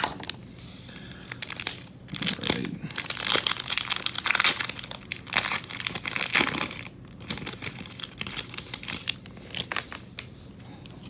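Foil trading-card pack wrapper being torn open and crinkled, with dense crackling from about two to seven seconds in, then a few scattered crinkles.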